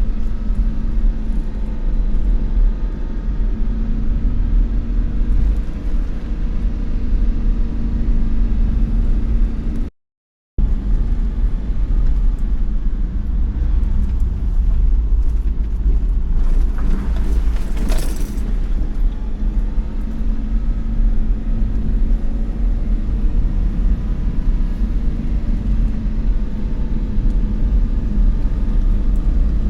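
A loud, steady low rumble with a faint steady hum over it, cut off briefly about a third of the way in. A short hiss rises above it a little past halfway.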